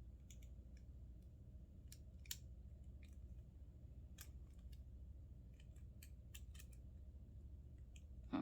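Faint, irregular clicks of small metal parts of a doorknob latch mechanism being handled and worked, over a steady low hum.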